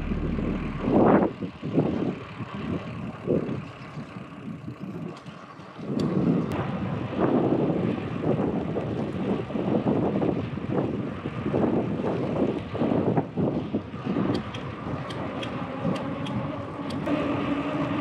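Wind buffeting the microphone of a moving bicycle rider, an uneven rumble that rises and falls in gusts, easing off for a couple of seconds about four seconds in.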